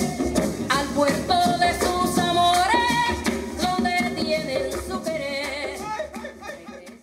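Spanish-language Latin American song, a singer over instrumental accompaniment, fading out over the last couple of seconds.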